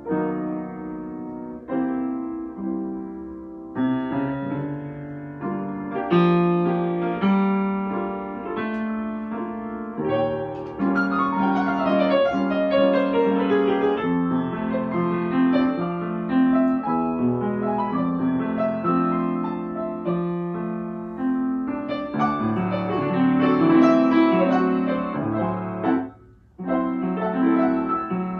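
Solo piano played by hand: a melody over chords, with a falling run of notes about halfway through and a short pause shortly before the end.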